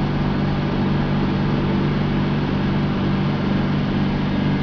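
Desktop PC running with a steady hum and hiss from its cooling fans, a few low steady tones under it, while it works through a Windows XP disk check at boot.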